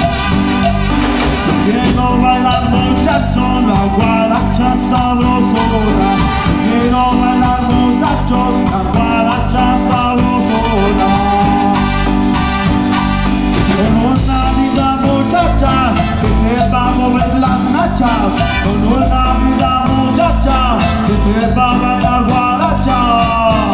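Live band playing an upbeat dance song through PA speakers: congas, drum kit, bass and keyboard keep a steady repeating rhythm under a sung vocal line.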